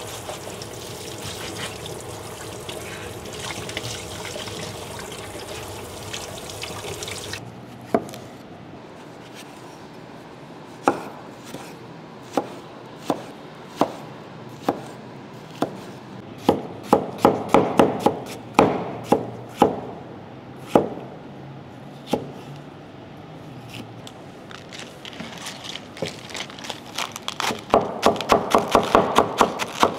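Kitchen tap water running while a potato is scrubbed under it with a scouring pad. About seven seconds in, this gives way to a knife cutting vegetables on a wooden chopping board: single cuts at first, then quick runs of chopping.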